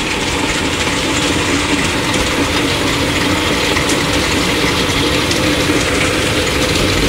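Belt-driven electric açaí pulping machine running steadily, churning açaí berries into pulp, a dense mechanical noise with a faint steady hum.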